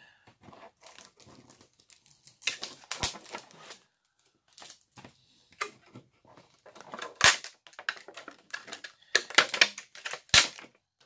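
Thin plastic mould being cracked and torn by hand off a cured epoxy resin block: irregular crinkling and crackling of the plastic, broken by several sharp snaps. The plastic is stuck fast to the resin.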